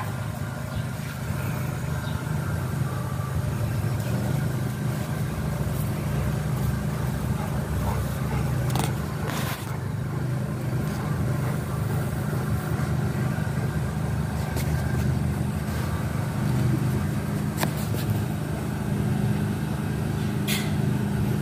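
Steady low hum of a running motor, with a few short clicks.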